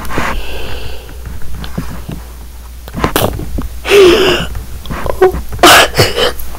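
A young person's voice making short breathy sniffs and a brief wavering whimper, mimicking crying.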